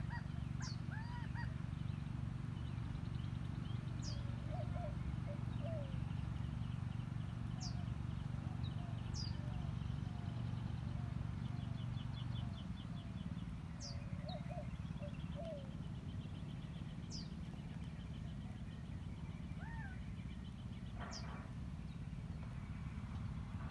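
Wild birds calling: short high down-slurred chirps every few seconds, with lower chirping notes and rapid trills, over a steady low rumble that eases slightly about halfway.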